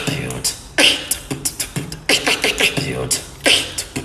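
Beatboxing: a fast run of mouth-made drum strokes mixed with short pitched vocal sounds, with the hardest hits about a second in and again near the end.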